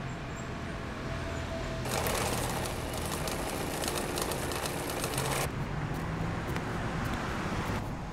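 A sewing machine stitching at speed, a rapid dense clatter that starts about two seconds in and stops abruptly about three and a half seconds later. A steady low street and traffic rumble runs underneath.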